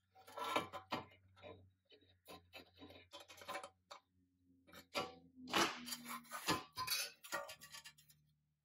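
Pressed-steel toy truck body and its metal parts being handled: irregular light metallic clicks, taps and short scrapes, busiest a little past halfway.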